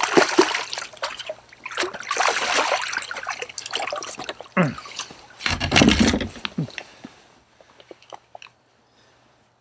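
Hooked largemouth bass splashing and thrashing at the surface beside a kayak as it is played in, in three loud bursts, with smaller splashes between. The last two seconds are nearly quiet.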